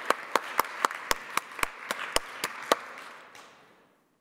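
Audience applause, with one person clapping close to the microphone at about four sharp claps a second; the clapping stops a little under three seconds in and the applause dies away soon after.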